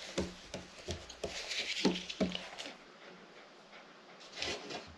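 Oven-baked chestnuts being handled and wiped: a run of light clicks, taps and rubbing, busiest in the first half, with another short scuffle near the end.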